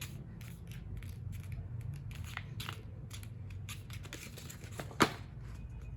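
Black cardstock being folded and creased by hand: a run of small ticks and rustles of stiff paper, with one sharp snap about five seconds in.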